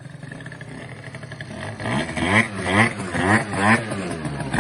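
Aprilia scooter's 70cc two-stroke engine, fitted with a new 24 mm carburettor, running at idle and then blipped in quick revs, about two a second, from about two seconds in.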